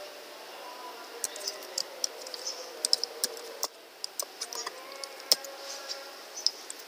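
Typing on a computer keyboard: irregular keystrokes in short runs, over a faint steady background hum.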